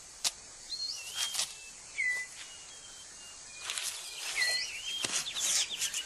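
Rainforest ambience of short whistled bird calls, several gliding down in pitch, over repeated bursts of dry rustling of leaves and twigs, busiest in the second half, as a male six-plumed bird of paradise clears debris from its display ground.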